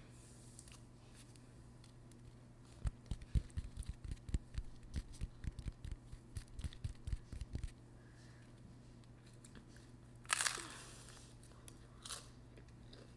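Handling noise on the camera microphone: a run of low, muffled thumps and bumps for about five seconds as a hand works at the camera. A short, loud crackling noise follows near the end, then a smaller one.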